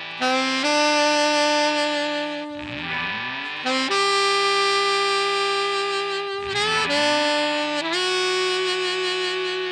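Improvised music: a saxophone holds long notes that change pitch every few seconds over a steady low drone. A swooping glide cuts in twice.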